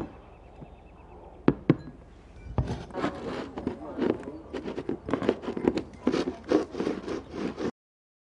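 Glass tumblers clinking sharply on a hard floor, a few single clicks, then about five seconds of rapid, irregular knocking and clattering that stops suddenly.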